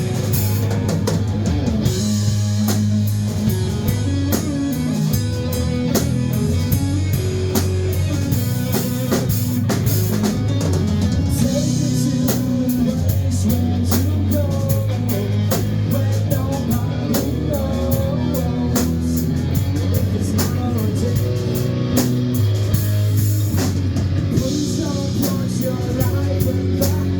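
A rock band playing live: a drum kit keeping a steady beat under electric guitar and low sustained bass notes that change pitch.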